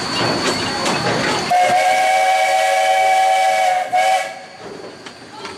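Steam locomotive whistle on the Cedar Point & Lake Erie Railroad blowing a long blast and then a short one, a chord of several steady tones. It sounds over the clatter and rail clicks of the moving train, which runs on more quietly once the whistle stops.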